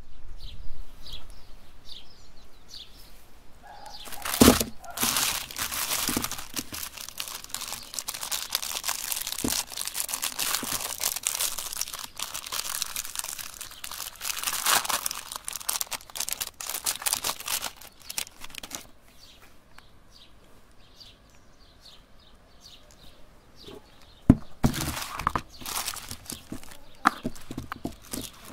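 Clear plastic ice cream bar wrappers being crinkled and torn open by hand. The crinkling runs steadily for a long stretch, goes quieter for a few seconds, then comes back in short bursts near the end.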